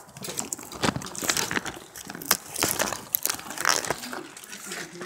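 Plastic tent sidewall sheet crinkling and rustling as it is handled close by, with scattered sharp clicks and scrapes.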